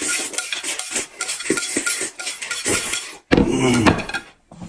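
Noodles slurped noisily from a plate, with chopsticks clicking against the dish. About three seconds in the slurping breaks off sharply, and a short loud low hum-like sound comes from the eater's full mouth.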